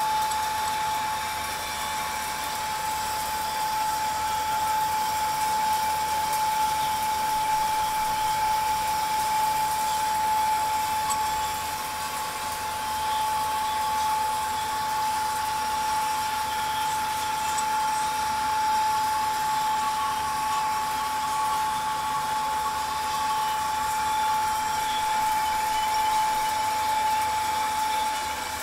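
Metal lathe running steadily with a constant whine, a boring bar turning out the inside of a metal housing.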